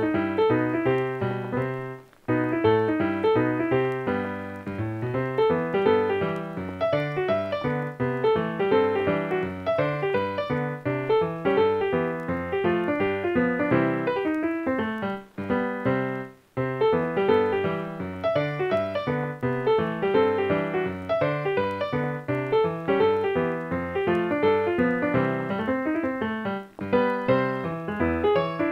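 Piano music with quick, busy runs of notes, pausing briefly about two seconds in and again about halfway through.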